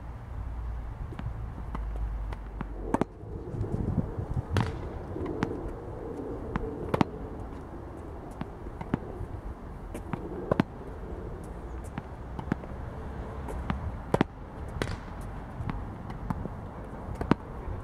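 Tennis balls popping off a junior racket and bouncing on a hard court. The sharp single knocks come at an uneven pace, one every second or two.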